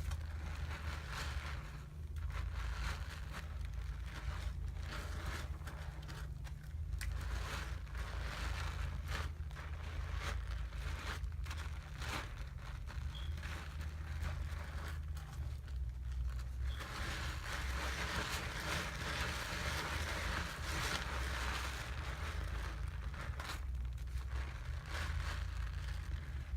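Soapy lather being squished and rubbed by hand, with fine wet crackles and rustling that grow denser about two-thirds of the way through. A steady low hum runs underneath.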